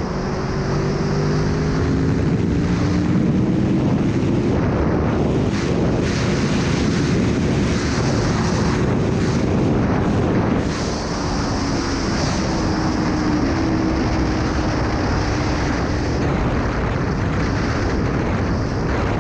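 Aprilia Tuono V4 1100's V4 engine running while the motorcycle is ridden, mostly buried under heavy wind noise, its pitch rising and falling with the throttle, with a brief drop in level about eleven seconds in.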